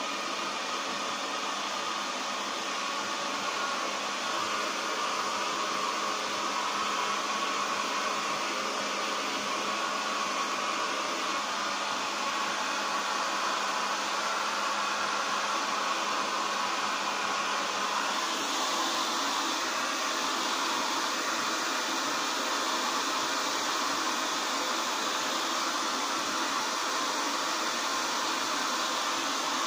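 Hand-held electric hair dryer running steadily, blowing warm air over a wet dog's coat: an even rush of air over a motor hum. The air sound turns a little brighter about two-thirds of the way through.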